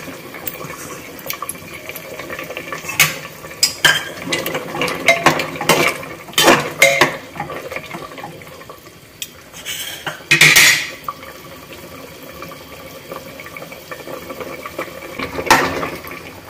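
A black slotted spatula stirring a stew of vegetables and broth in an aluminium cooker pot, knocking and scraping against the pot's sides. The knocks come in a run from about three to seven seconds in, one loud knock comes near ten seconds, and another comes near the end.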